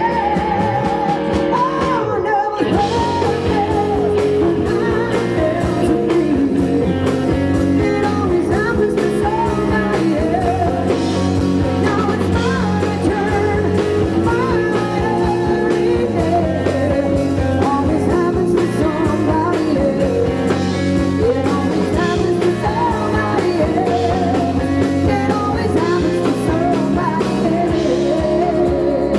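Live rock band playing: electric guitars, bass guitar and drum kit, amplified through the stage PA.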